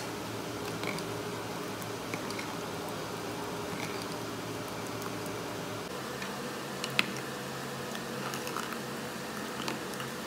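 Steady low hum with a few faint ticks and one sharper click about seven seconds in; the hum changes about six seconds in.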